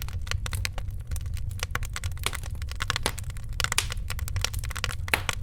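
Fire in a fireplace crackling: many sharp, irregular pops and snaps over a steady low rumble.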